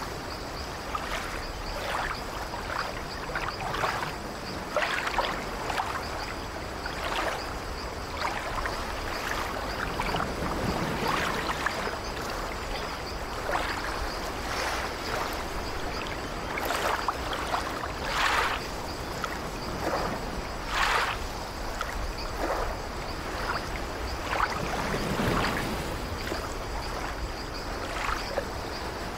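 Ocean surf: waves washing and splashing, a steady wash of water broken by frequent short splashes.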